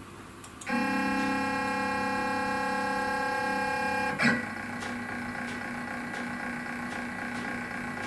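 Stepper motors of a SainSMART Genmitsu PROVerXL 6050 Plus CNC router whining steadily as the Z axis lowers the bit toward a touch-probe puck during automatic Z-zero probing. About four seconds in there is a short click as the bit meets the puck and the whine stops. A quieter steady hum carries on after it.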